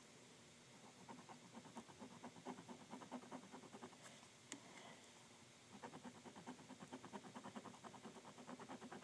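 Pencil sketching on paper: two runs of quick back-and-forth shading strokes, with a short pause in the middle broken by a single sharp click.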